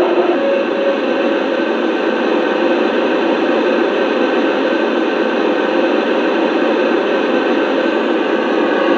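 Steady hiss and rumble of a garden-scale model train standing at a station, beginning to creep forward near the end.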